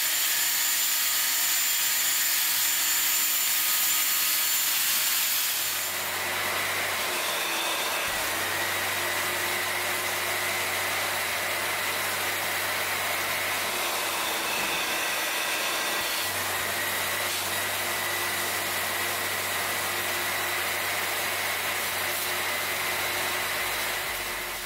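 A cordless drill spins a scrub brush against a carpet floor mat with a steady high whine. About six seconds in, this gives way to a carpet extractor running steadily with a low hum as its wand sprays and sucks water from the mat, the hum dropping out briefly about two-thirds of the way through.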